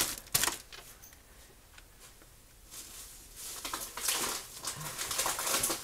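Plastic produce packaging rustling and crinkling as groceries are handled and set on a counter. There is a short knock near the start, and the rustling is heaviest in the second half.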